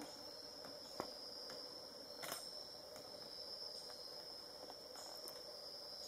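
Forest insects holding a steady high-pitched drone, with two faint clicks, one about a second in and another a little past two seconds.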